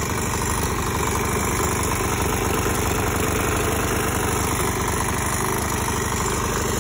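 Small single-cylinder engine of a Craftsman self-propelled push mower running steadily at idle with no oil in the crankcase. It has a little knock, which the owner puts down to a broken motor mount bolt.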